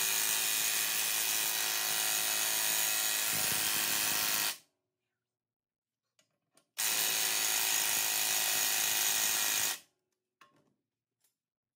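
Impact wrench running in two steady bursts, the first about four and a half seconds long, then after a two-second pause another of about three seconds, as it slowly spins a corroded control-arm bushing nut off its long threaded shaft.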